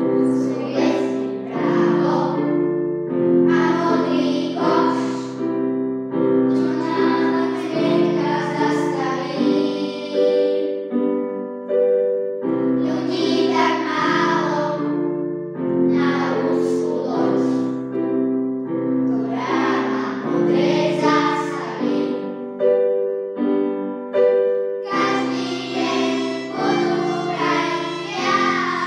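A children's choir sings a Christmas song in unison, in phrases with short breaks. A Casio electric keyboard accompanies them with held chords.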